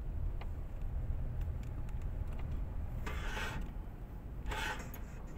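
Steady low rumble of a moving car heard from inside the cabin, with two short hissing noises about three and four and a half seconds in.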